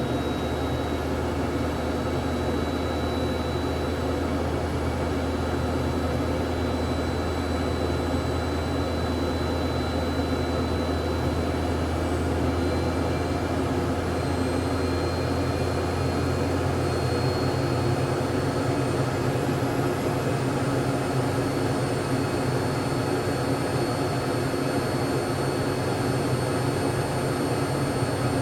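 Jet airplane engine running steadily, with a dense noise and a thin high whine that slowly rises in pitch. A low hum underneath shifts up in pitch about two-thirds of the way through.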